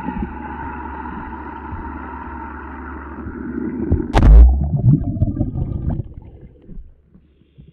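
A firecracker exploding underwater, heard through a submerged camera. A steady rushing noise swells, then about four seconds in comes a single sharp, heavy blast, followed by churning water that dies away over the next two seconds.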